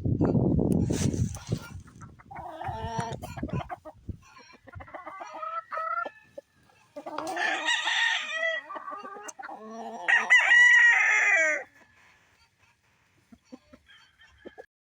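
Roosters crowing several times, one after another, with the loudest crow about ten seconds in. A low rumbling noise fills the first second or so.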